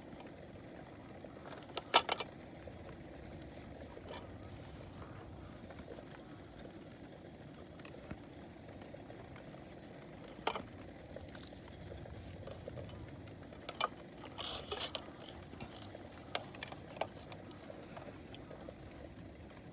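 Metal cookware and utensils clinking and knocking now and then while a camp breakfast is made, over a low steady rumble. The sharpest clink comes about two seconds in, with a cluster of knocks a little after the middle.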